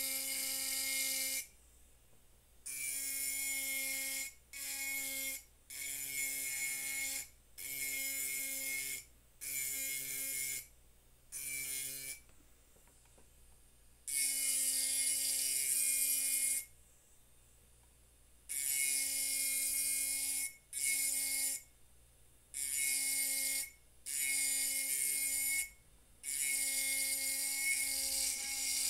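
Handheld electric engraving pen working on a glass wine bottle, switched on and off in bursts of one to two seconds. Each burst is a steady hum with a bright hiss from the tip on the glass.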